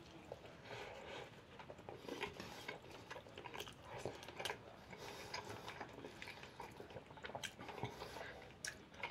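Faint chewing and mouth sounds of a man eating mashed potatoes and beef cutlet, with small scattered clicks and smacks throughout.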